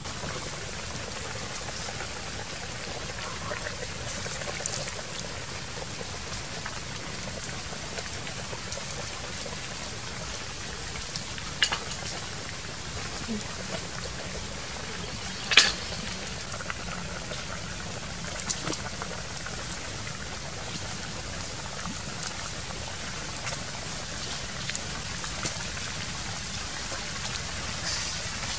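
Beef bone and vegetable soup boiling in a wok over a wood fire: a steady bubbling hiss, broken by a few sharp clicks and knocks, the loudest about halfway through.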